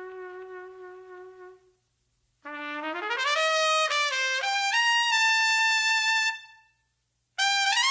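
Background music: a solo trumpet plays slow, held phrases with short pauses between them. A held note fades out, then after a pause a phrase slides upward and settles on a long note, and a new phrase begins near the end.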